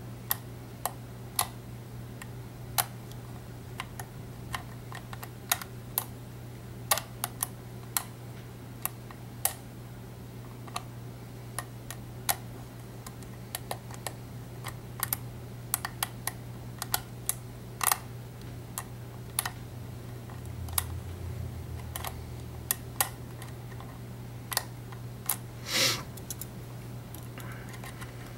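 Metal lock pick clicking and scraping against the pin stacks and warding inside an EVVA ALS euro cylinder during single-pin picking: irregular sharp clicks, a few a second, with a slightly longer scrape near the end, over a steady low hum. The picker is working to regain a lost false set.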